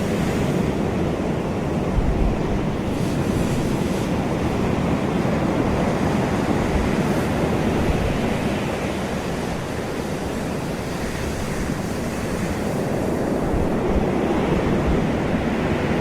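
Ocean waves breaking and washing on a shore in a steady, continuous surf wash that swells and eases slowly over several seconds, with a low rumble of wind on the microphone.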